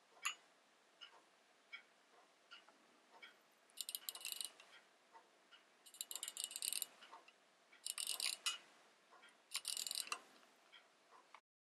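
Gold hunter-case repeater pocket watch striking the hour on its gong: four bright, high-pitched strikes about two seconds apart, matching the four o'clock on the dial. A sharp click just after the start as the sprung case lid opens, and faint small clicks in between.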